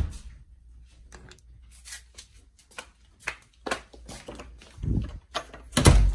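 A brass door knob clicks as a door is opened, then footsteps in slide sandals on a tile floor, about two a second, with two heavier thumps near the end.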